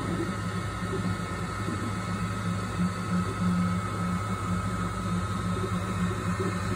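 3D printer running: a steady fan hum with a low motor tone that keeps cutting in and out as the print head moves.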